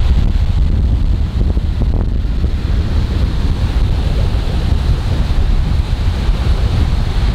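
Wind blowing across the microphone, a loud low rumble, with the wash of sea surf behind it.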